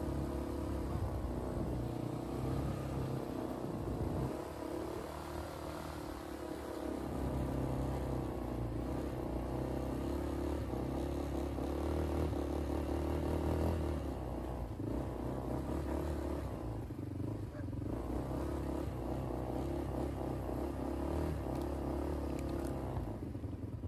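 ATV (quad bike) engine running while it is ridden, its pitch rising and falling with the throttle.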